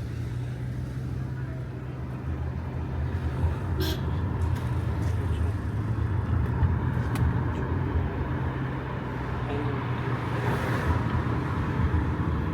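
Car engine and road noise heard from inside the moving car, a steady low rumble, with a couple of short clicks about four seconds in.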